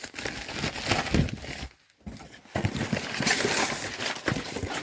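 Packaging crinkling and rustling as it is handled and opened, in two spells broken by a short pause about two seconds in.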